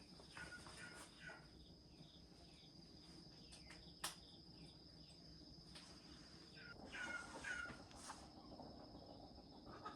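Faint steady high-pitched trill of crickets, with a few short falling chirps about a second in and again around seven seconds in, and a single sharp click near the middle.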